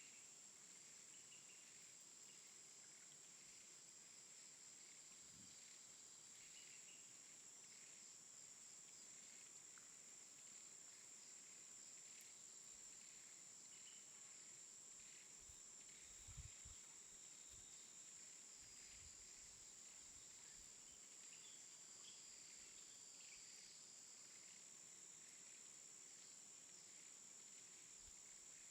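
Near silence, with a faint, steady high-pitched tone and faint scattered chirps throughout.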